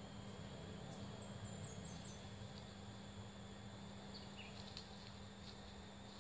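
Faint outdoor insect chorus: insects calling steadily at a high pitch. About a second in there is a quick run of short, high chirps that fall in steps, and a few faint clicks come near the end.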